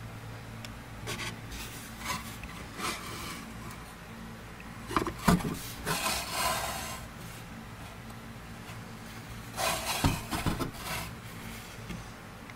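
Handling noise from a hand touching and turning a desktop model airliner on its stand: scattered rubs and scrapes, a sharp knock about five seconds in followed by a longer scrape, and another cluster of knocks and scrapes near the end, over a steady low hum.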